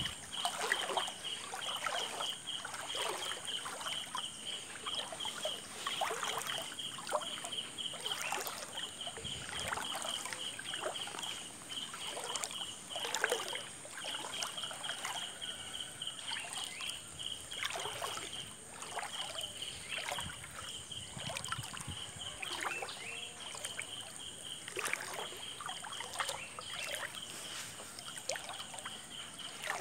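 Floodwater splashing and sloshing in irregular strokes, over an insect's fast pulsing trill that breaks off briefly a few times, and a steady high hiss.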